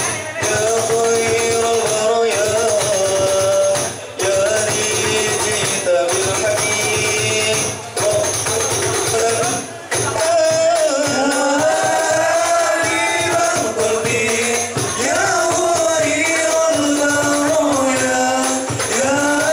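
Male voices singing an Islamic devotional song (sholawat) into microphones, the lead and other singers carrying one melody in gliding, ornamented phrases. Jingling hand percussion of a rebana (frame drum) ensemble accompanies them.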